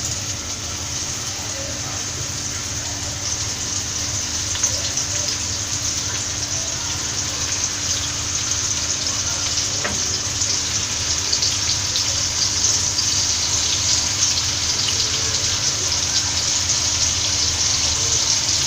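Marinated boneless chicken pieces deep-frying in hot oil: a steady, loud sizzle full of fine crackles, growing slightly louder.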